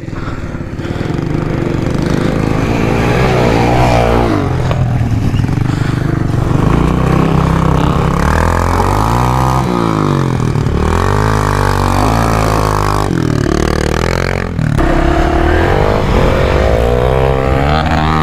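Off-road motorcycle engine revving again and again, the pitch rising and falling with each twist of the throttle as the bike works through deep mud.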